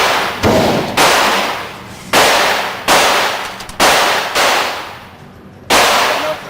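Gunshots fired singly, six in about five and a half seconds, each sharp crack trailing off in a long echo, with a longer pause before the last one.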